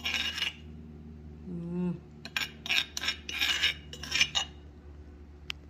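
Kitchen utensils and dishes scraping and clinking in a run of short, irregular scrapes, with one sharp click near the end.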